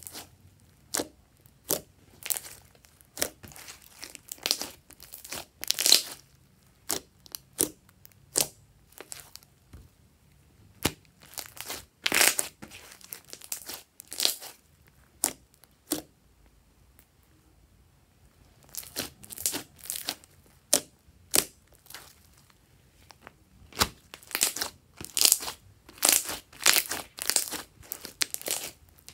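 Hands squeezing and kneading a lump of glossy slime, giving runs of sharp, wet squelching pops and crackles, with a quieter pause a little after the middle.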